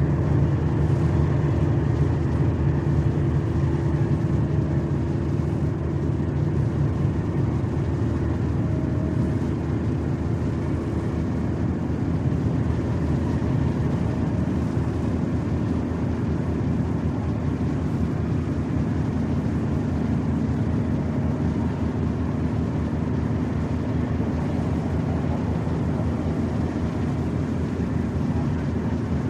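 Fishing-harbour ambience carried by a steady low engine drone, as from a boat's engine running, with a few faint short higher tones coming and going over it.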